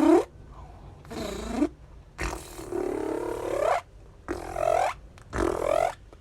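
Beatbox 'Sega sound' made with the mouth, a zipper (air drawn in through thinned lips) combined with a click roll, performed in about four separate bursts that glide in pitch.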